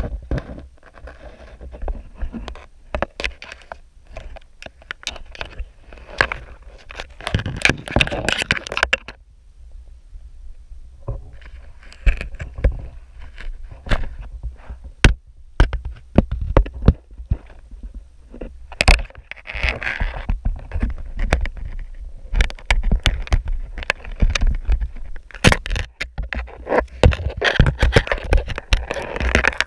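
Dense, irregular knocks, clicks and scrapes of a GoPro's underwater housing being jostled against rock and shell underwater, handled by a crab, with a quieter pause about a third of the way through.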